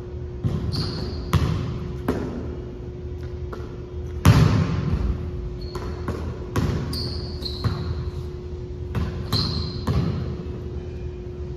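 Basketball bouncing on a gym floor in a large echoing hall, irregular thuds about once a second with the loudest a little over four seconds in, mixed with short high sneaker squeaks. A steady low hum runs underneath.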